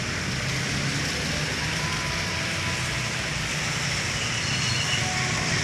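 Steady rain and traffic on a wet road: cars passing with their tyres hissing over the wet asphalt, over a continuous low engine hum.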